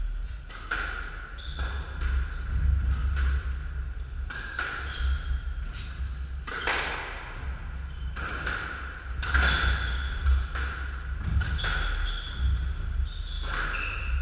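Squash rally: the ball cracks off racquets and the court walls again and again, roughly once a second, each hit ringing briefly in the court. Short high squeaks of court shoes on the wooden floor come between the hits.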